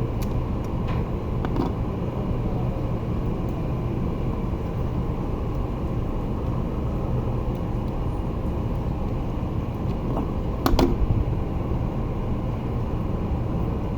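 Steady low background rumble with a faint hum, a few small clicks, and one sharper knock about eleven seconds in.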